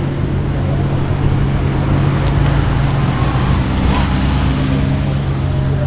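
Car engine running steadily at low revs, holding an even pitch.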